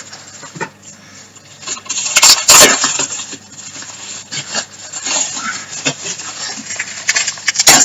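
Hands handling and unwrapping packaging: irregular rustling with scattered clicks and knocks, loudest about two and a half seconds in and again near the end.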